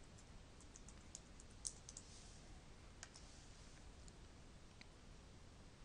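Near silence with a few faint, scattered computer keyboard and mouse clicks as login details are entered and the Login button is clicked.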